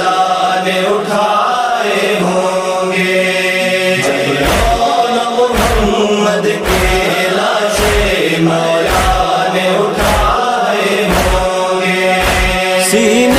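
Noha, a Shia mourning lament, chanted by voices. A steady heavy beat joins about four seconds in, a little under two beats a second.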